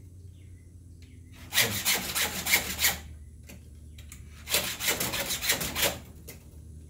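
Hand file in a chainsaw file guide rasping across the cutters of a dull saw chain, in two sets of about five quick push strokes with a short pause between the sets.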